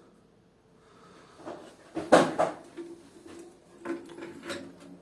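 Handling noises from the toilet fill-valve parts being picked up and moved: a few knocks and rattles, the loudest clatter about two seconds in and another near the end.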